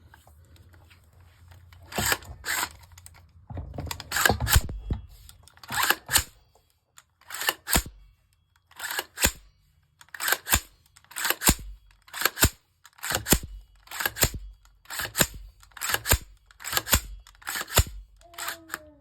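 Anvil forced reset trigger in an AR-15 lower being function-tested by hand: a long run of crisp paired metallic clicks, about one pair a second, as the hammer falls and the trigger is forced back to reset. The trigger is resetting properly, cycle after cycle.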